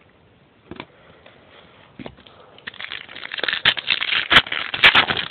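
Baseball trading-card packs and cards being handled by hand: a few light clicks, then from a little under three seconds in a dense run of crinkling and sharp snaps, typical of a pack wrapper being torn open and cards flicked through.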